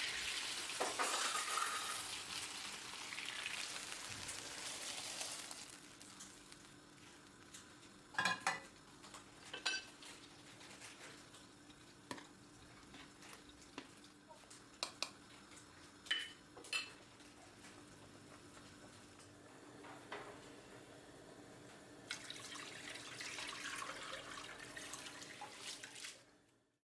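Chicken pieces sizzling in oil in a frying pan, then a spoon stirring the chicken in a stainless-steel pot of curry sauce, knocking sharply against the pot several times. The sizzling hiss comes back near the end and cuts off suddenly.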